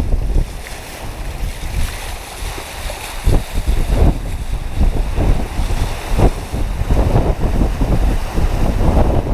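Wind buffeting the microphone over the rush and slap of choppy water against a sailing catamaran's hulls as it sails fast, with repeated brief gusty surges.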